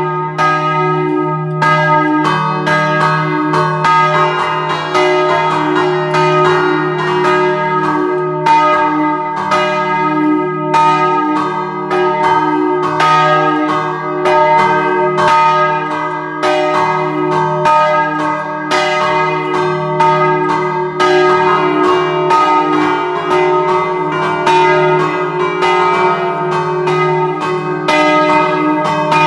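A three-bell peal in E-flat, bronze bells cast by De Poli in 1947, swinging and ringing at close range inside the belfry. The strikes come close together and overlap in a dense, continuous peal.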